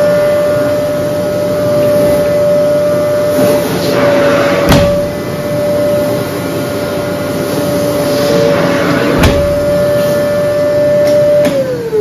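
Karaca Vantuz bagless vacuum cleaner running with a steady, even whine, relatively quiet for its power. Its motor winds down near the end as it is switched off. Two sharp knocks come about four and a half seconds apart.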